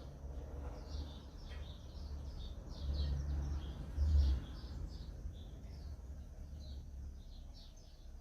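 Small birds chirping, many short high notes in quick succession, over a low rumble that swells loudest about three and four seconds in.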